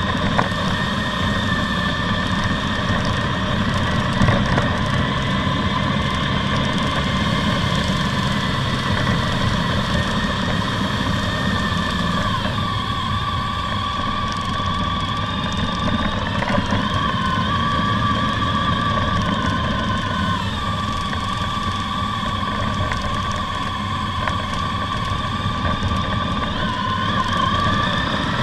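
Honda ST1300's V4 engine running under way on the road, with wind and road noise. Its pitch falls and rises several times through the middle and again near the end as the throttle is eased and opened.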